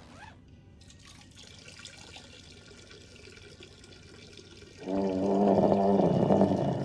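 A stream of liquid splashing into a urinal, faint at first. About five seconds in, a loud, steady pitched sound comes in over it and lasts about two seconds.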